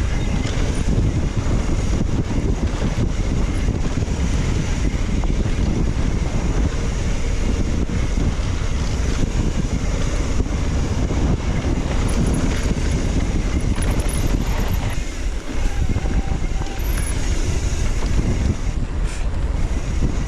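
Heavy wind rumble on the microphone while a mountain bike rides a fast dirt trail, easing briefly about fifteen seconds in.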